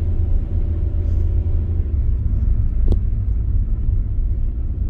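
Mitsubishi Xpander Cross under way: a steady low rumble from its 1.5-litre four-cylinder engine and tyres on the road, with one short click about three seconds in.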